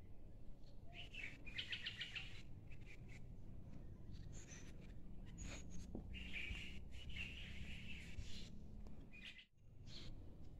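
Small birds chirping in the trees, with a quick string of chirps about two seconds in and a longer run of chirping in the middle, over a steady low rumble. The sound dips out briefly near the end.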